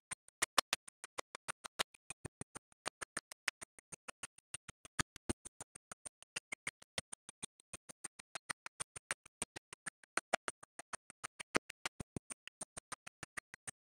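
A rapid, evenly spaced run of sharp clicks, about six a second, some much louder than others.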